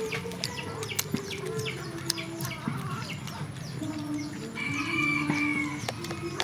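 Background music playing a simple stepping tune, with short high chirps and clucking sounds and scattered clicks over it.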